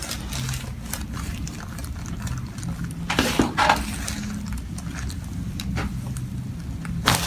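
Sharp cracks and pops of joints during a chiropractic adjustment: a short cluster about three seconds in and a single sharp crack near the end, over a steady low hum.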